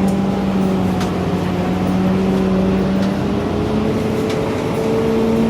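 A 2004 Orion VII hybrid-electric city bus running, heard from inside: a steady drivetrain hum over road noise. Its pitch rises a little about halfway through as the bus picks up speed, with a few light rattles.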